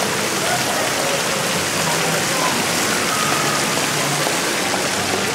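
Steady rushing hiss with no breaks, with faint voices in the background.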